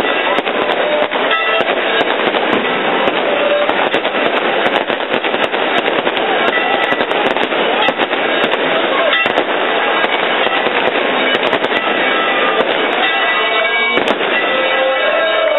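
A dense crowd clapping and shouting without a break, with many sharp cracks through it.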